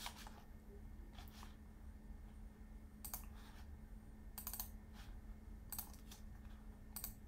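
Sparse clicks of a computer keyboard and mouse, a few at a time, over a faint steady hum.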